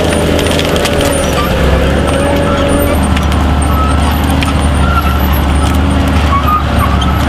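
Forestry forwarder's diesel engine running steadily under load as it pulls a Bracke T26.a disc trencher, its rotating toothed discs scarifying the soil. A high whine sounds over the engine for the first three seconds, and the tone of the machine shifts about three seconds in.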